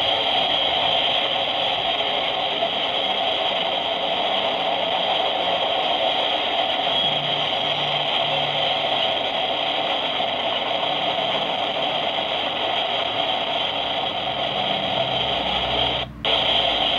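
Norfolk Southern freight cars loaded with steel coils rolling past, a steady, even noise of steel wheels on rail. The sound cuts out for a moment about a second before the end.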